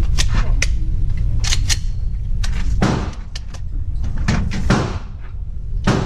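Gunfire from 9mm Glock Gen 5 pistols: a string of about ten sharp shots, irregularly spaced, over a steady low rumble.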